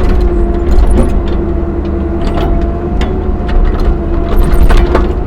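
CAT 305 mini excavator's diesel engine running under load with a steady hydraulic whine, as the machine side-digs a trench. Scattered knocks and scrapes come from the bucket working the dirt.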